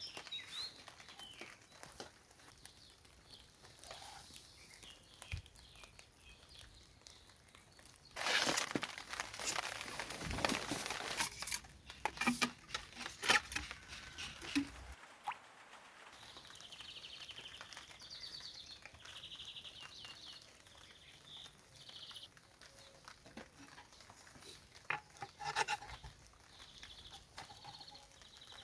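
Rustling and light knocks of hands handling material for several seconds, then a bird singing faintly in short trills.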